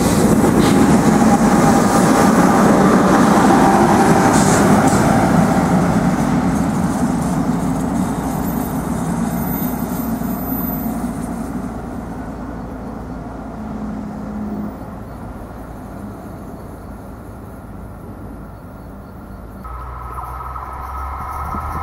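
NJ Transit multilevel commuter train passing at speed on the near track: a loud rumble of wheels on rail that fades steadily over the following dozen seconds as the train draws away. Near the end a new steady hum with a higher whine begins.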